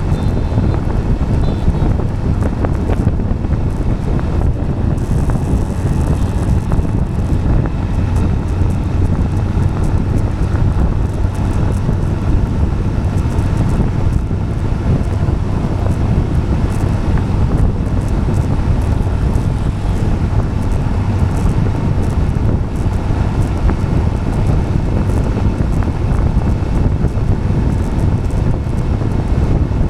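Steady wind buffeting the microphone over a low, even rumble of tyres rolling on asphalt.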